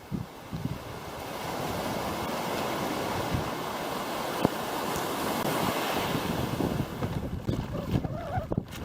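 Water rushing along the hull of a sailing outrigger made from an old surfski, with wind buffeting the microphone. The rush builds over the first couple of seconds and then holds steady, with one sharp tick about four and a half seconds in and gusty low rumbles near the end.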